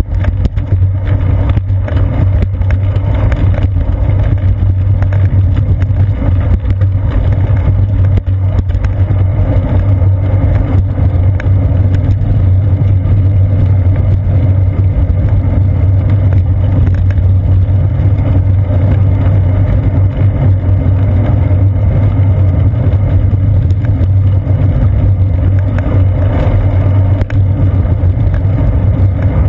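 Steady, loud low rumble of wind and road vibration picked up by a seat-post-mounted camera on a moving bicycle.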